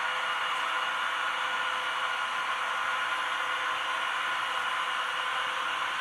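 Freight train cars rolling past: a steady noise of wheels on the rails, with a few faint steady tones in it.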